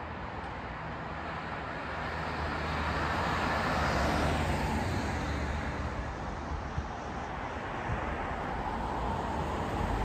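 A car going by on the street, its tyre and engine noise swelling to its loudest about four seconds in and then fading.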